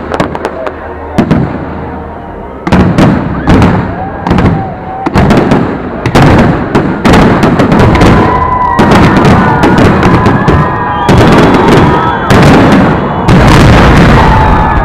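Firework salute shells bursting in loud, rapid succession, dozens of sharp bangs overlapping, packing closer together in the second half.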